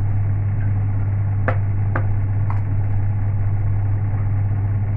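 A steady low hum, with a few light clinks of a metal ladle against the pot and serving bowl about halfway through, three in quick succession.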